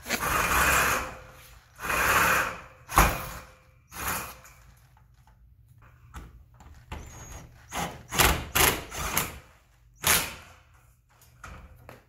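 Cordless drill running in two short bursts against a steel garage-door reinforcement strut, followed about three seconds in by a sharp knock. Later come scattered clicks and several sharp metal knocks as the strut is handled and adjusted.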